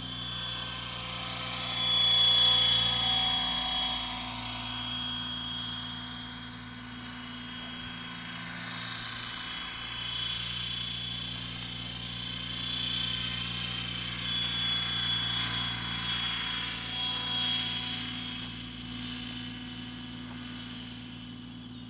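Align T-Rex 800 radio-controlled helicopter in flight: the whir of its rotor blades with a high steady motor whine. It grows louder and fades as it moves, loudest about two seconds in and again around the middle.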